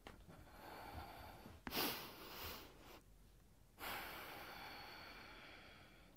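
Faint breathing of a woman: three slow breaths, the loudest starting sharply about two seconds in, the last a long breath out that slowly fades.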